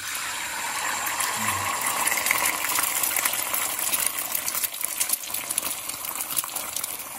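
Quail eggs sizzling and crackling in hot oil in a cast-iron skillet as they are poured in from a bowl: a steady hiss full of small pops.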